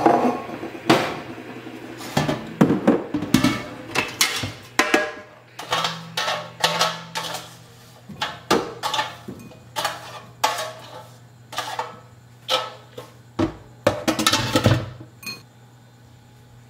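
Kitchenware clatter as food is served from an air fryer basket into a glass bowl with a fork: a quick string of clinks and knocks over a low steady hum, the clatter stopping near the end.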